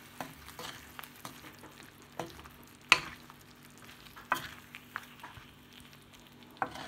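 Chicken pieces with tomato paste and spices sizzling in oil on a tawa while a wooden spatula stirs them slowly, with scattered scrapes and knocks of the spatula on the pan, the sharpest about three seconds in.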